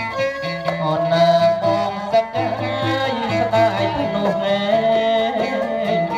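Khmer traditional ensemble playing. A bending melodic line runs over low barrel-drum notes and a steady beat of light percussion strokes.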